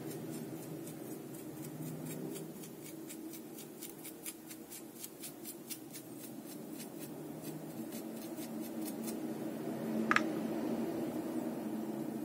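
Paintbrush dabbing black acrylic paint onto a rough, rock-textured diorama piece: a run of quick, light scratchy strokes, about three a second, that stop about nine seconds in, over a steady low hum. A brief high squeak comes near the end.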